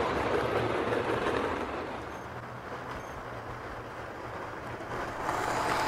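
A train running past with a steady rumble and low hum. It fades after about two seconds and grows louder again near the end as it comes closer.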